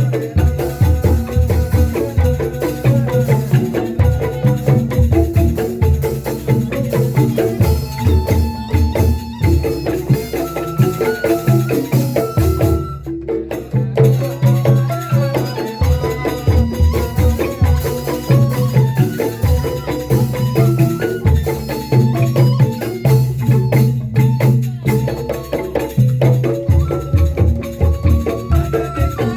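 Music: a rhythmic ensemble piece with a steady pulsing beat and a melody of short pitched percussive notes.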